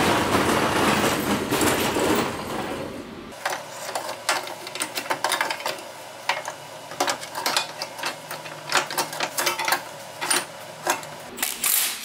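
A dense rush of noise for about the first three seconds, then irregular sharp clicks and clanks of hand tools and metal exhaust parts as the exhaust is bolted back onto the car.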